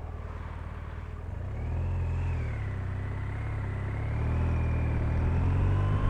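Touring motorcycle engine pulling away through a turn and accelerating, its drone growing louder in two steps. A thin high whine wavers over it, with wind and wet-road noise.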